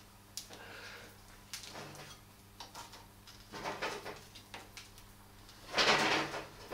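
New D.I.D 525 X-ring motorcycle drive chain clinking and rattling in scattered clicks as it is fed by hand around the front sprocket, with a longer, louder rattle near the end.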